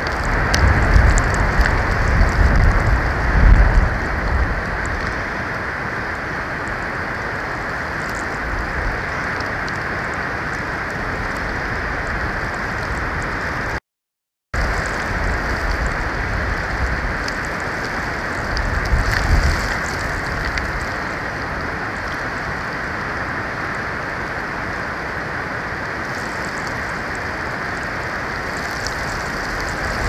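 Steady hiss of storm wind and falling precipitation on an outdoor nest-cam microphone, with low rumbling surges in the first few seconds and again about two-thirds of the way through. The hiss is broken by a brief moment of silence about halfway.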